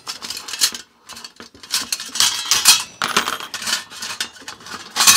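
Small metal stove parts clinking and clattering against a steel utensil strainer as they are pulled out by hand and laid down, in a run of irregular clicks.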